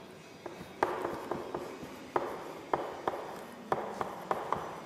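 Writing on a board: a string of short, sharp, irregular taps, about two a second.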